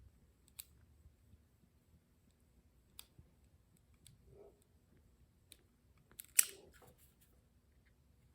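Sparse, faint clicks and taps from small hand tools and wire being handled, with a louder cluster of sharp clicks a little over six seconds in.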